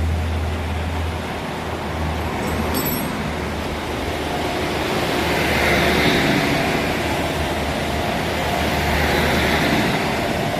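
Riding a motor scooter on a wet road in the rain: a steady low wind rumble and the hiss of road and traffic noise, which swells about five seconds in and eases off again.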